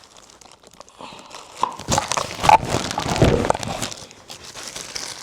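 Plastic packaging crinkling and rustling while a set of insulated hot pots is handled, with a few short knocks; the handling is loudest from about two to four seconds in.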